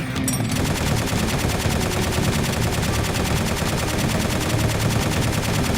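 Rapid, continuous automatic gunfire starting about half a second in, with shots following one another too fast to count.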